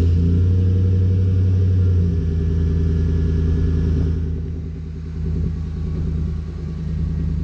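Pickup truck engine idling just after starting, running at a raised idle for about two seconds and then settling a little lower and steady.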